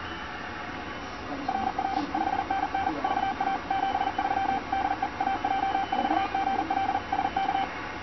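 Morse code (CW) tone, a single steady pitch keyed on and off very fast by an Arduino Nano automated straight keyer sending its reply message at its top speed. The tone starts about a second and a half in and stops shortly before the end, over a steady hiss.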